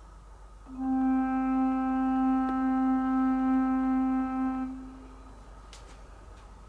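Background music: a single long held note in a woodwind-like tone comes in about a second in, holds steady for about four seconds, then fades out.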